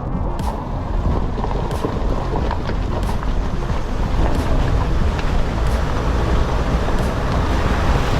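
Van driving over rough ground: a steady low rumble, with faint light ticks repeating about every second and a bit.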